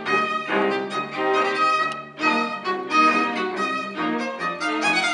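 Live chamber string ensemble, violin and cello, playing a classical piece with bowed, sustained notes. There is a short break between phrases about two seconds in.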